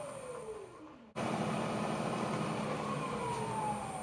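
A Bridgeport Type 1 2 hp knee-mill spindle motor, run from a VFD, slows to a stop with a whine that falls in pitch. The sound breaks off abruptly just after a second, then returns running. About three seconds in it winds down again with another falling whine, as the VFD ramps the spindle down to change direction.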